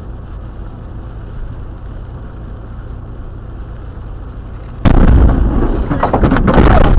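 Steady car cabin and road noise in the rain, then about five seconds in a sudden, very loud thunderclap as lightning strikes a roadside tree right beside the car. A run of sharp cracks and knocks follows as the splintered tree comes down across the road.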